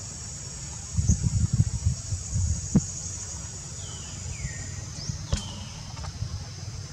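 Steady high-pitched insect chorus, with a run of low thumps and rumbles in the first three seconds and a few short falling whistled calls between about four and five and a half seconds in.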